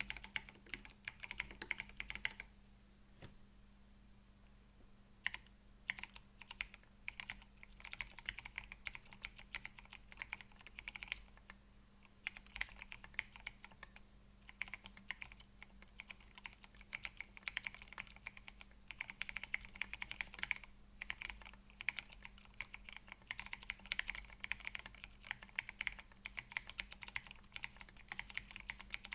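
Typing on a MechWild Orange Boy Ergo mechanical keyboard with Gateron Brown tactile switches and PBT keycaps: a run of keystroke clicks, a pause of about two to three seconds, then steady typing again, now on a desk mat.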